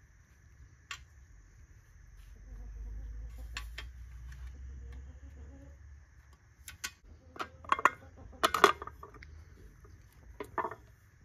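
Kitchenware handled during cooking: scattered knocks and clinks of dishes and utensils, coming in a quick cluster and loudest about eight to nine seconds in, with a low rumble earlier on.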